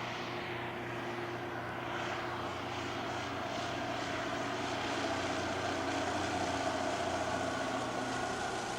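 A float plane's propeller engine droning as it flies past, growing louder toward the middle and easing near the end, its pitch dropping slightly.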